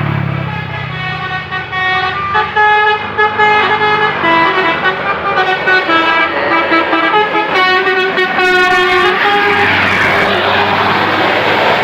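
Basuri telolet multi-trumpet air horn played by hand, sounding a quick melody of short notes. About nine and a half seconds in, the notes give way to a loud rushing hiss.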